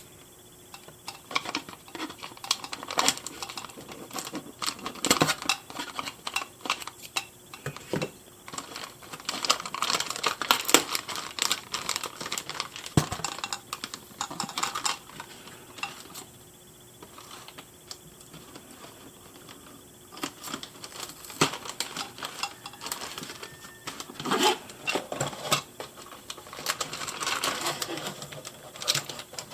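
Doll packaging being handled: plastic insert and cardboard box crinkling, rustling and clicking in irregular spells, with a few quieter pauses, as the doll and its stand are worked free of the box.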